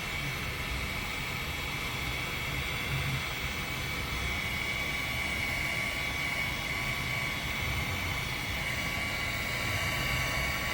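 Heat gun running steadily, its fan blowing with a high whine while it shrinks heat shrink tubing over a crimped cable lug.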